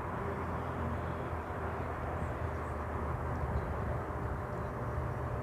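Steady low rumble and hum of electric passenger trains at a station platform, one waiting to depart and another slowly approaching, with no sudden sounds.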